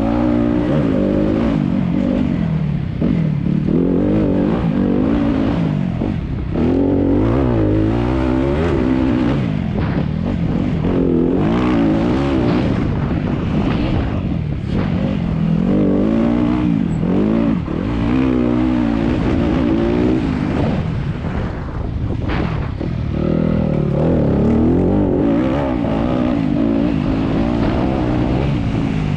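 Enduro motorcycle engine heard close from on board, revving hard and easing off again and again, its pitch climbing and falling every few seconds as the bike is ridden along a rough forest trail, with occasional knocks from the bike over the ground.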